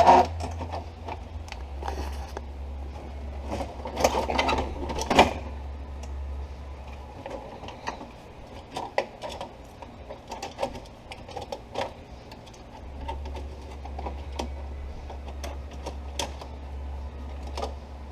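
Hands working a plastic part off a car's steering column: irregular plastic clicks, knocks and rattles, with the loudest clatters at the start and around four to five seconds in. A low steady hum runs underneath and drops out for several seconds in the middle.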